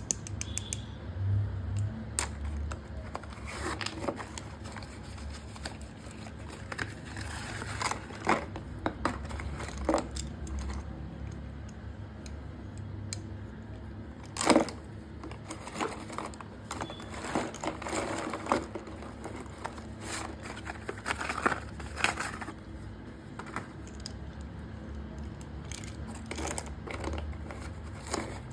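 Plastic parcel packaging being handled and torn open: irregular crinkling and tearing with scattered sharp clicks, one louder snap about halfway through.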